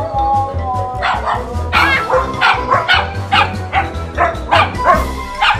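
Siberian husky vocalizing: a drawn-out howl, then a quick series of short yowling calls, about two a second, over background music with a steady beat.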